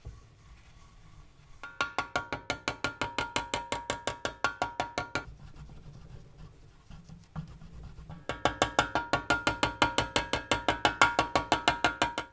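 Rapid light tapping on the grater's thin metal drum, about eight ringing taps a second, to knock out its dents. The taps come in two runs of a few seconds each, with a pause of about three seconds between them.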